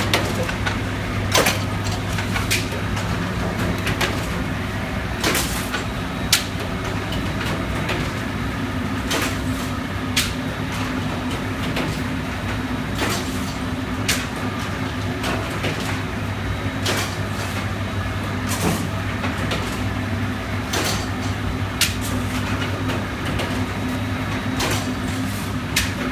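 Automatic lavash bread production line running: a steady low machine hum with sharp clacks every one to three seconds.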